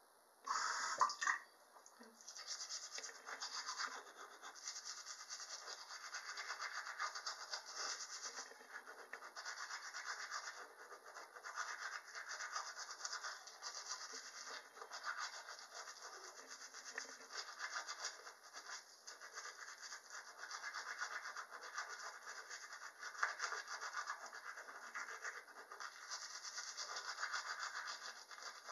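Manual toothbrush scrubbing teeth through toothpaste foam, a continuous fast back-and-forth scrubbing. A brief louder sound comes about a second in.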